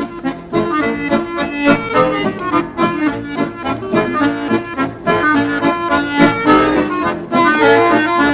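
Accordion playing a lively dance tune in quick runs of notes.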